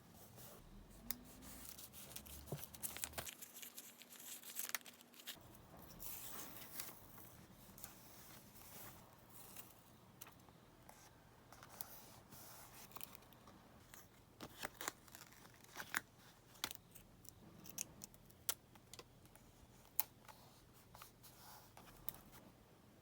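Paper crafting at close range: paper, stickers and masking tape being handled, peeled and torn, with scratchy rustling that is busiest over the first several seconds. After that come sparser light ticks and short scrapes.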